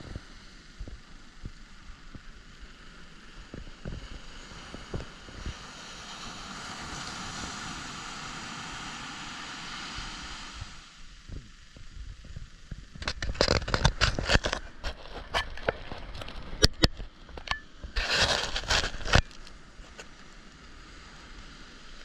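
Small waves breaking and washing up a sand beach, a steady surf hiss that swells for a few seconds about six seconds in. About thirteen seconds in, some six seconds of loud crackling and knocking rise above the surf.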